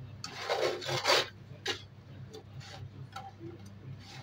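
Slotted metal spatula scraping and tapping against a nonstick frying pan as doughnut fritters are turned in melted sugar to glaze them. There is a long scrape in the first second, a shorter one a little later and a few light taps, over a steady low hum.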